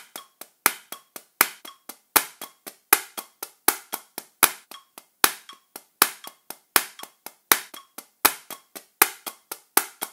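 Wooden drumsticks striking a drum practice pad in steady triplets, about four strokes a second, with the accent on the third stroke of each group. Some bars are played with one hand and some with both sticks striking together.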